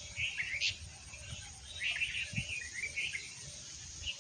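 Small birds chirping in short, high, scattered calls, with a soft low thump about halfway through.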